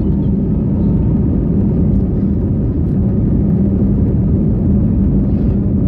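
Steady engine and rolling noise inside the cabin of an Airbus A321 moving along the runway, a loud low rumble with an even hum under it.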